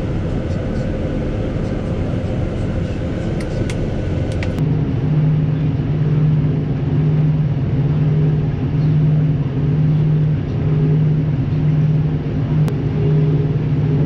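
Farm machinery running at work: a tractor engine heard from inside its cab, alongside a working New Holland TX62 combine harvester. About four and a half seconds in the sound changes to a steady low drone that swells and fades about once a second while the combine unloads grain into the tractor's trailer.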